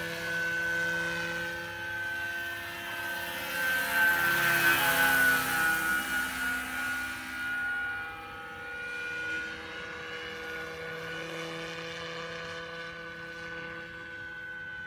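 Electric large-scale Vario BO 105 model helicopter flying past: a steady whine of motor and rotors with a rushing swish. It grows loudest about four to six seconds in, dropping in pitch as it passes, then carries on quieter and steady as it moves away.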